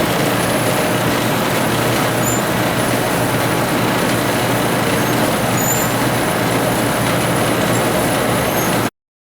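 Tire truing machinery running, a steady loud mechanical noise with a hum, which cuts off suddenly near the end.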